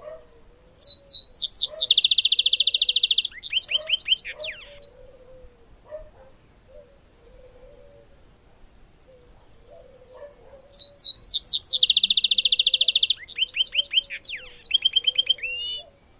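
Caged goldfinch × canary hybrid finch singing two song bouts of about four to five seconds each. Each bout opens with a few rising notes, goes into a long, fast, buzzing trill, then runs of quick downward-sweeping notes. Faint low repeated calls sound underneath throughout.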